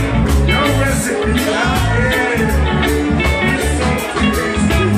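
Live band playing: a male singer's voice over electric bass, electric guitar and drums, with a steady beat.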